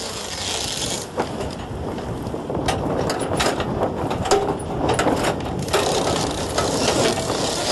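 A sailing yacht's winch being cranked, its ratchet pawls clicking in runs as a sail line is hauled tight, over a steady rushing background.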